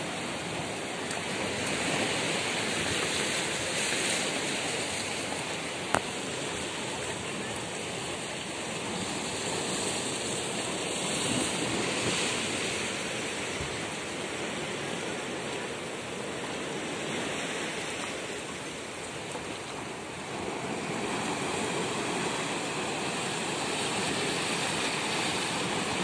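Sea waves breaking and washing on the shore, a steady rush that swells and eases every few seconds, with one brief click about six seconds in.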